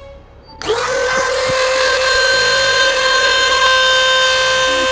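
Black & Decker RT18KA 180 W rotary tool switched on about half a second in, spinning up at once to a steady high whine as its cone-shaped grinding stone is run over wood. The stone barely bites and leaves only a light mark.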